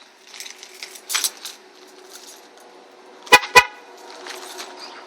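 A car horn gives two short toots about a quarter second apart, a little over three seconds in, after some light rustling and clinking.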